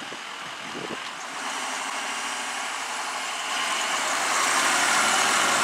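A Ford box ambulance's engine and tyres on the road, growing steadily louder as it drives up and passes close by.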